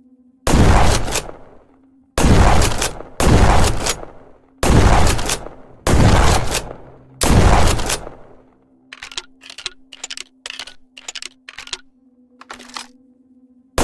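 Trench gun (pump-action shotgun) sound effect: six loud shots roughly a second apart, each with a long fading tail, followed by a run of short clicks and clacks. A faint steady hum lies underneath.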